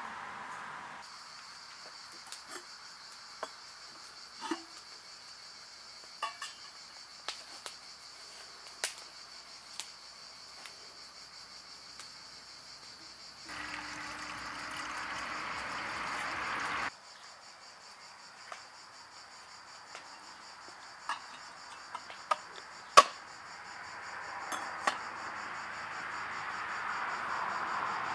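Crickets chirring steadily, high-pitched, with scattered sharp knocks and clicks. About halfway through, water runs from a metal pipe into a samovar for about three seconds, a rushing splash with a low steady tone under it, then stops suddenly.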